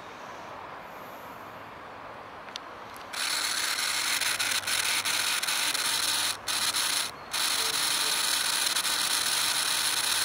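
A loud, steady, high-pitched rasping noise starts about three seconds in and drops out briefly twice.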